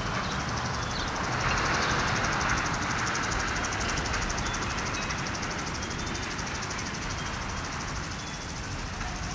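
Freight train cars rolling past, steel wheels running on the rails in a steady rumble that swells a little about two seconds in.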